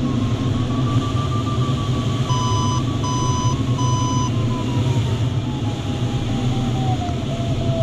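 A glider's audio variometer gives a continuous tone that rises a little, then slides steadily lower and breaks into short beeps near the end, as the climb rate in the thermal drops. Midway, three short electronic beeps from the cockpit instruments sound over it. Steady airflow rushes through the cockpit underneath.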